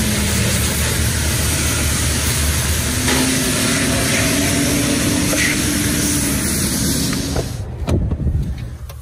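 High-pressure water spray hissing steadily from a pressure-washer wand as it blasts dive gear and a plastic dive buoy clean. The spray cuts off a little before the end, followed by a few sharp knocks.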